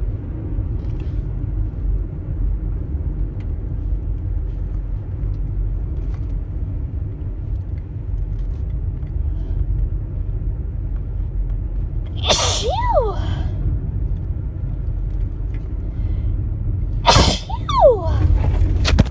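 Two high-pitched sneezes from a woman, about five seconds apart, each a sharp burst ending in a short squeaky voiced tail that rises and falls in pitch. A steady low rumble sits underneath.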